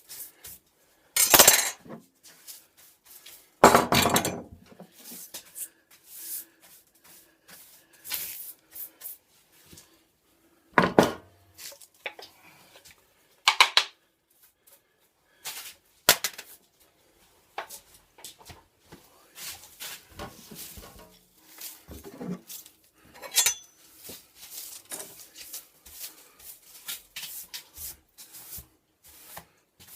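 Irregular clinks and knocks of hard objects being picked up and set down, with a few louder knocks early on and around the middle.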